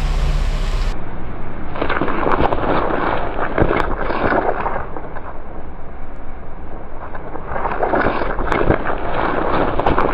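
Car tyre rolling over two long green gourds and crushing them with a wet, crackling crunch, heard twice: about two seconds in and again about seven and a half seconds in.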